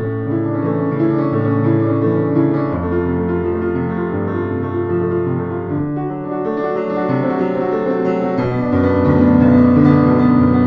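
Instrumental background music led by piano, with sustained chords over low bass notes that change every second or two.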